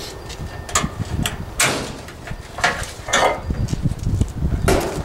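Red ratchet tie-down strap being undone and pulled loose: several sharp, irregular clacks, rattles and scrapes of the metal ratchet and webbing.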